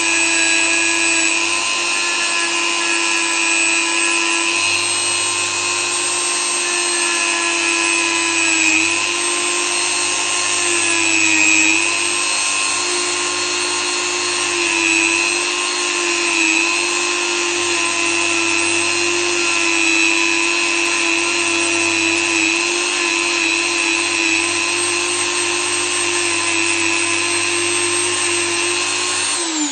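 Dremel rotary tool fitted with a soft wheel, running as a steady whine while it cleans debris out of a seal groove. Its pitch dips slightly each time the wheel is pressed onto the part. It is switched off at the very end and winds down.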